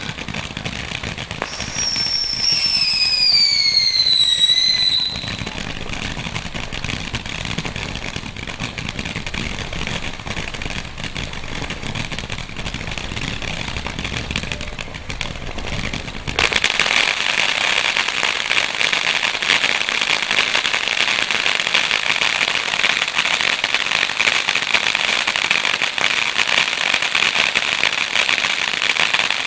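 Red Apple Element X Y22 200-shot firework cake firing: past the halfway point a dense, continuous barrage of rapid shots starts abruptly and keeps going. Before it, a low rumble with a falling whistle.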